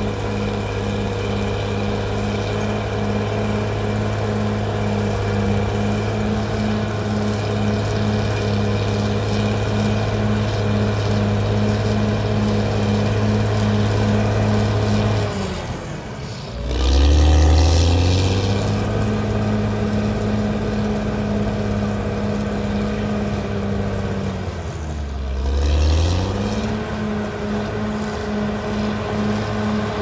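Caterpillar D6R XL crawler bulldozer's diesel engine running steadily under load as it pushes earth. Twice, about halfway through and again near the end, the engine note drops and then climbs back up.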